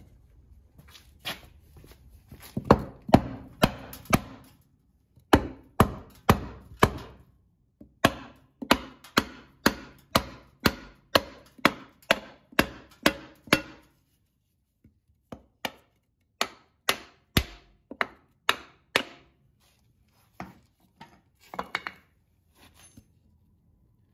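Hammer blows on a wooden block held against a Mity Kat dozer's steel rear differential cover: dozens of sharp knocks in runs of several seconds with short pauses, about two a second at the steadiest. The cover is being bounced to break its old gasket seal loose, a way to free it that can help save the gasket.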